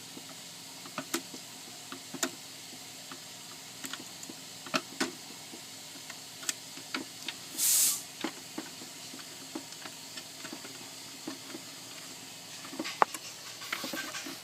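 Small clicks and taps of hands and tools working on the wire terminals inside an Aquabot Turbo robotic pool cleaner, with one short, high hiss about seven and a half seconds in and some rustling near the end.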